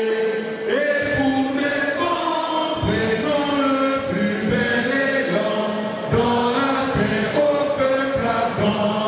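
Voices singing a slow chant-like song in long held notes that step from one pitch to the next.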